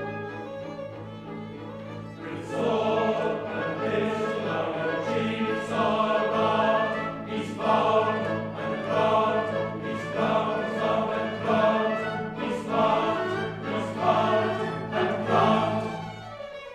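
Comic-opera chorus and orchestra performing: sustained orchestral chords at first, then from about two seconds in loud, regularly accented choral phrases over the orchestra, easing off near the end.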